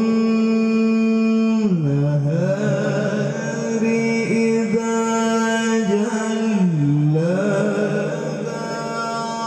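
A man reciting the Quran in the melodic tilawah style into a handheld microphone: long held notes, with the pitch dipping and returning about two seconds in and again near seven seconds.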